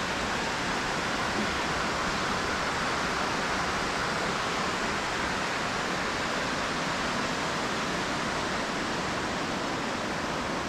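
Steady rushing of the Itajaí-Açu river's flowing water, an even noise that does not change.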